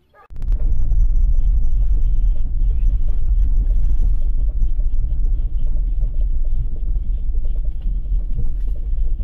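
A vehicle driving along a rough dirt track, heard from inside the cabin: a loud, steady, low rumble of engine and tyres that cuts in abruptly just after the start.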